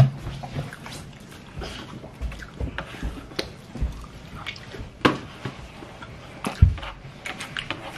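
Eating sounds: a plastic fork scraping and tapping a paper plate as noodles are scooped, and chewing. Scattered sharp clicks and a few low knocks, the sharpest about five seconds in and again past six and a half seconds.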